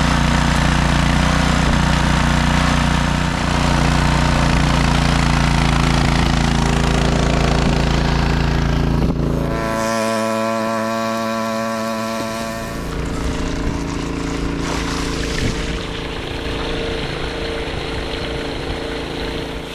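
Small engine of a 2-inch trash pump running steadily while pumping out standing water. About nine or ten seconds in, the deep engine note drops away for a few seconds, then a steady engine sound returns.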